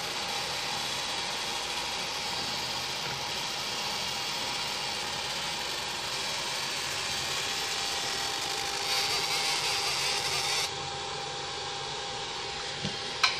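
Handheld laser marker running steadily with a faint constant whine, overlaid by a high hiss while it burns a QR code into the rubber tyre sidewall. The hiss grows louder for the last moments of marking and cuts off about eleven seconds in, leaving the steady running noise, then a single sharp click near the end.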